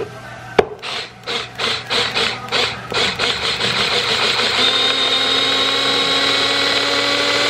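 Small battery-powered electric mini chopper chopping onion and garlic. A click, then the motor runs in short pulses, then whirs steadily with a high whine.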